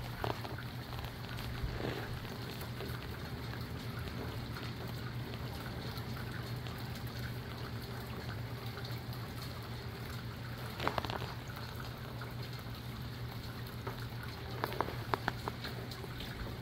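Steady rain falling in a breezy to gusty wind, with a constant low hum underneath. A few louder drip-like taps come about eleven seconds in and again near the end.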